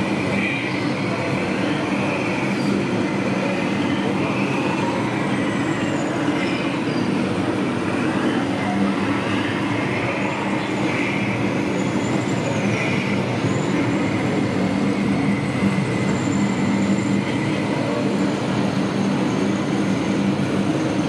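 1:16 radio-controlled Kirovets K-700 model tractor running while pulling a cultivator: a steady mechanical drone with a few brief high squealing glides, over the constant din of an exhibition hall.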